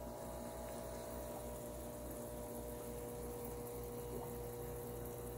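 Steady hum of an aquarium air pump with several constant pitched tones and a low throb pulsing a few times a second, under faint water bubbling from a sponge filter.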